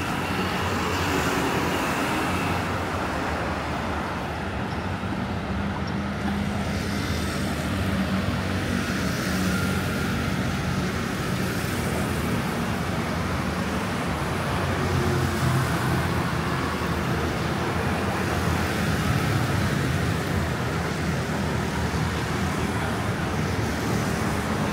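Steady city traffic noise from cars and motor scooters passing on a multi-lane road.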